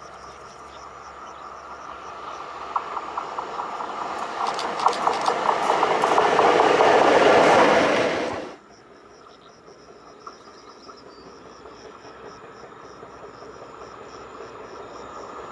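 A Škoda class 163 electric locomotive passes close by running light, growing louder to a peak, with its wheels clicking over the rail joints. About eight and a half seconds in, the sound cuts off suddenly. A second locomotive, running light, is then heard approaching more quietly and grows louder near the end.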